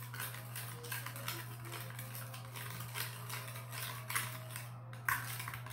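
Small spoon stirring in a green plastic bowl, clicking and scraping lightly and irregularly against the sides, as slime activator powder is mixed into water until it dissolves. A steady low hum runs underneath.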